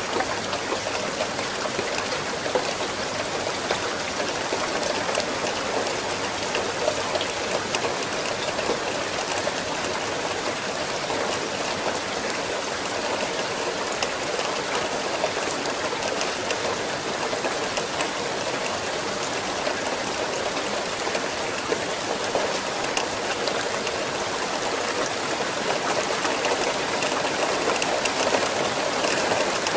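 Steady rain: a dense, even hiss of falling rain with many single drops ticking through it.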